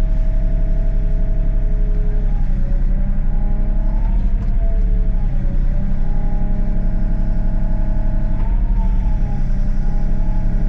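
Excavator's diesel engine running steadily under a hydraulic whine that shifts up and down in pitch several times as the boom and dipper are worked under load.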